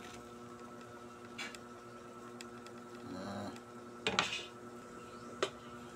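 Faint kitchen sounds at a stove: a few light clinks and knocks of a metal pot and utensils, the loudest a short cluster a little after four seconds in, over a steady low hum.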